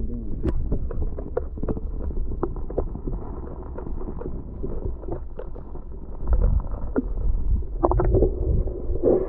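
Wind rumbling on the microphone, with scattered clicks and knocks of handling.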